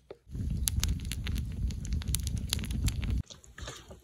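Kitchen knife slicing paneer on a wooden cutting board: a run of sharp, irregular clicks and taps over a steady low rumble. The sound drops off abruptly about three seconds in, leaving softer, quieter sounds.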